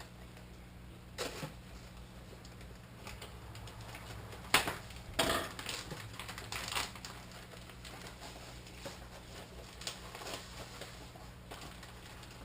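Scattered clicks and light rustles of decal sheets and kit packaging being handled, with one sharp click about four and a half seconds in, over a low steady hum.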